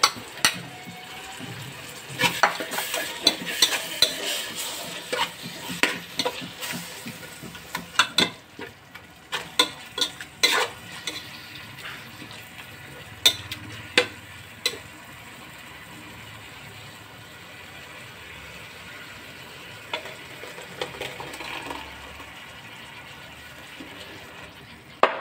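Sliced onions sizzling in hot oil in a pot while a metal spoon stirs them, scraping and clicking sharply against the pot's sides, with a paste being stirred in.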